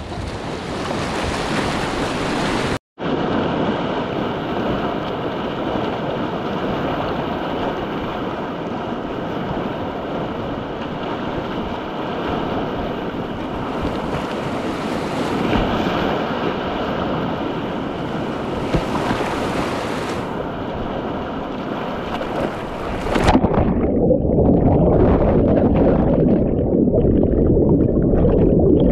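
Whitewater rapids rushing and splashing around a kayak, picked up by a GoPro on the paddler, with a brief dropout about three seconds in. About 23 seconds in the sound turns suddenly muffled, low and bubbling as the camera goes underwater when the kayak flips over.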